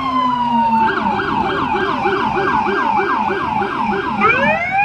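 American police car electronic sirens: a wail falling in pitch, switching about a second in to a fast yelp of roughly three to four cycles a second, then a new wail rising near the end.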